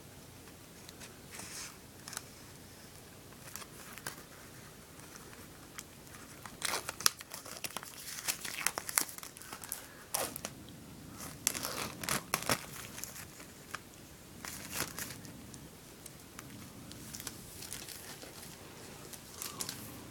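Thin plastic film wrapping crinkling and tearing as it is handled and pulled off a CD case, in irregular bursts that are busiest in the middle of the stretch.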